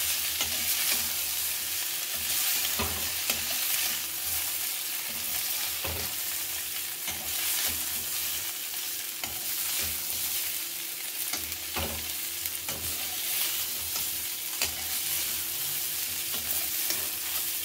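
Steamed masoor dal fritters sizzling as they fry in hot oil with cumin in a metal kadhai. A metal spatula scrapes and knocks against the pan every few seconds as they are stirred.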